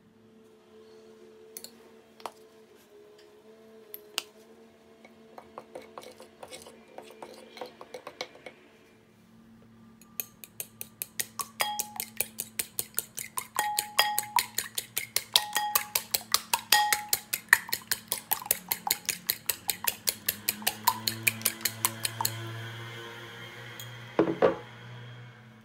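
Metal fork beating eggs in a ceramic bowl: a fast, even run of clinks of the fork against the bowl, about four a second, after a few scattered softer clinks. A single louder knock comes near the end.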